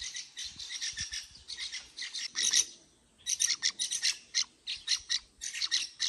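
Small songbirds squawking in quick runs of short, harsh, high calls, with a brief lull about halfway through.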